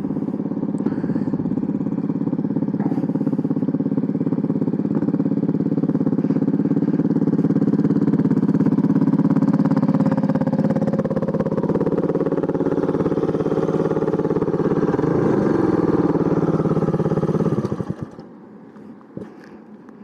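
Honda CB400SS's single-cylinder four-stroke engine running steadily at low revs, then stopping abruptly near the end.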